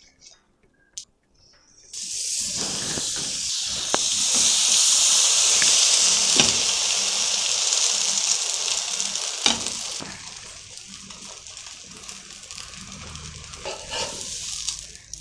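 Milk-and-custard-soaked bread frying in butter on a hot pan. The sizzle starts suddenly about two seconds in, stays loud for several seconds, then settles to a quieter sizzle, with a few light knocks in between.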